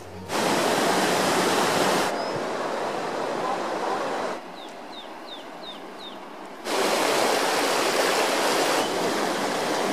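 Mountain river rushing over rocks in a steady roar of water. It drops abruptly a little after four seconds in and comes back loud again after six and a half seconds. During the quieter stretch a small bird chirps about five times in short, quick notes.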